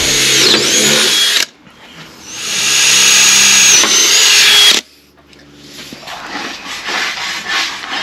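Cordless drill boring a bolt hole through a steel RSJ beam, in two runs: about a second and a half, a short pause, then about two and a half seconds more, easing up to speed. After it stops, faint rubbing and handling noise.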